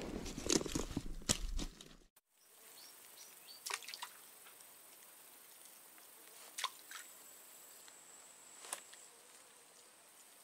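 Rustling of bankside grass and leaves and handling noise as a caught climbing perch is held among the plants. After a cut, quiet swamp background with a few faint, sharp drip-like ticks.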